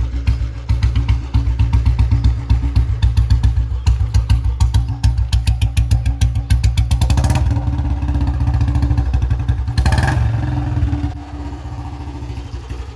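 Single-cylinder Royal Enfield Bullet engine running with a fast, even thump. It is blipped briefly about seven and ten seconds in, then settles to a quieter idle near the end.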